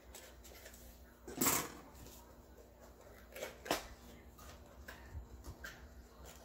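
A small cardboard box being slit open and handled: a rasping scrape about a second and a half in, then two sharp clicks a little later and light rustling of the cardboard.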